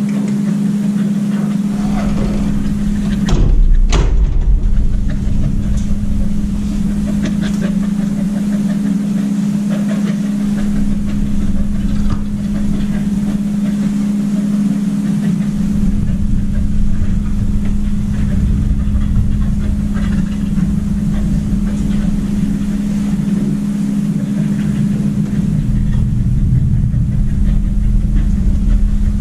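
Steady low machine hum with a deeper rumble that comes and goes, and two sharp knocks a little over three seconds in.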